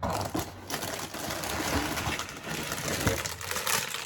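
Sealed plastic bags of Lego pieces rustling and crinkling as they are handled, with the loose bricks inside rattling and clicking.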